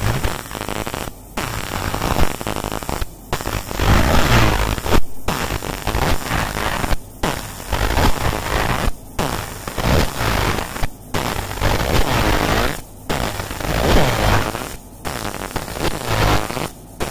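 JPT 50 W fibre laser engraving a metal dog-tag blank, a harsh crackling buzz as the beam burns in deep hole marks. It runs in repeated passes of about two seconds, each separated by a brief break, as the job loops for a deep engrave.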